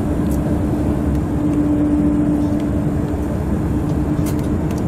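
Tour coach driving at speed, heard from inside the cabin: steady engine and road noise with a constant low hum.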